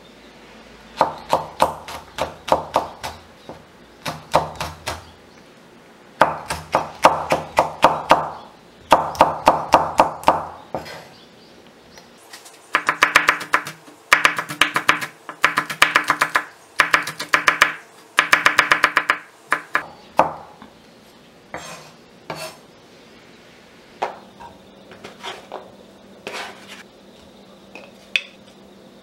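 Kitchen knife slicing green chili peppers on a wooden cutting board: quick runs of knife strokes knocking on the board, in several bursts. Near the end only a few scattered knocks and clinks.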